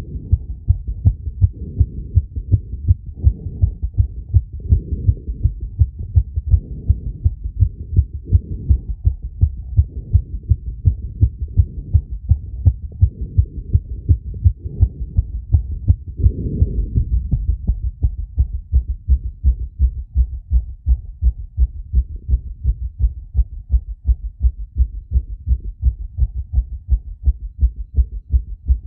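Human heartbeat picked up through a chest sensor for a phonocardiogram: fast, evenly spaced lub-dub thumps with all the sound kept low in pitch. A short louder rush of noise comes in a little past halfway.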